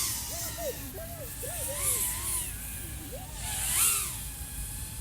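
Brushless motors and propellers of an iFlight AOS 3.5 V5 FPV quadcopter whining, the pitch swooping up and down rapidly as the throttle changes. Louder rushing whooshes come about two seconds in and again near four seconds.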